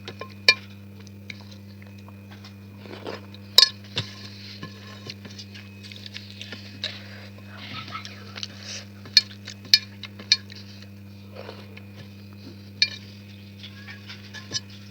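Eating from a plate: scattered clinks and clicks against the dish and small mouth noises, over a steady low hum.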